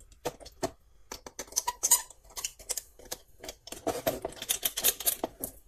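Screwdriver and wire being worked at the screw terminals of an electrical switch board, fastening the neutral wire: a run of small clicks and scrapes, busiest in the second half.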